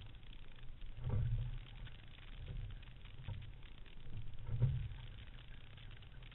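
Water rushing past a single racing scull, with wind on the deck-mounted camera's microphone, and a dull surge about four times as the sculls take short strokes.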